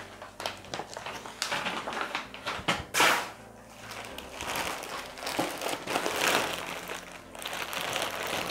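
Parcel packaging rustling and crinkling as it is unpacked by hand, in irregular crackles with a sharper, louder one about three seconds in.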